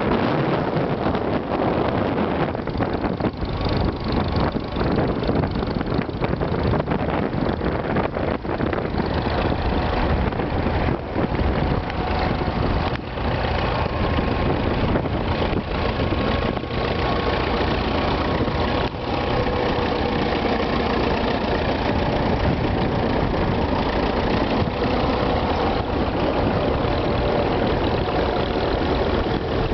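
Vintage Fordson tractor engine running steadily while pulling a plough.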